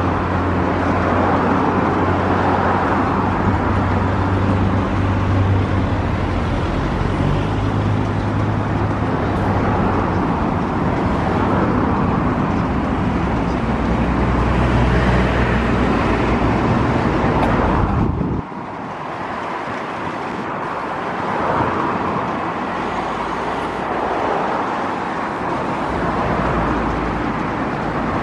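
Steady motor and traffic-like noise with a low engine hum. The hum cuts off suddenly about 18 seconds in, leaving a lighter steady noise.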